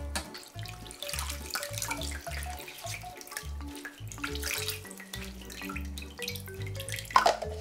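Water splashing and trickling in a stainless steel bowl as blanched spinach is stirred in cold water and scooped by hand into a spinach spinner basket, water draining back into the bowl. A sharp clink near the end, over background music with a steady bass line.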